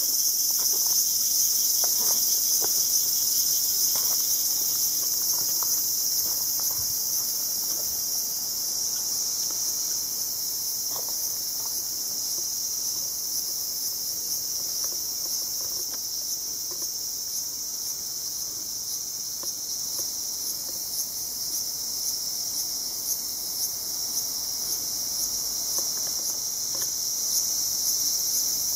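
Dense, steady high-pitched chorus of insects, a continuous shrill buzz that eases a little midway and swells again near the end.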